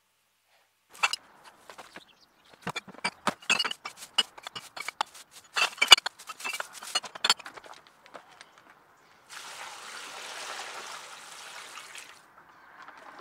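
Empty glass bottles clinking and knocking together as they are put one after another into a plastic tub, followed by about three seconds of steady running water.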